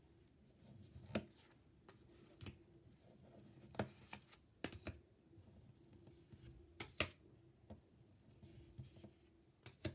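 Quiet room tone with a faint steady hum and a handful of scattered, irregular small clicks and taps, the sharpest about a second in and about seven seconds in.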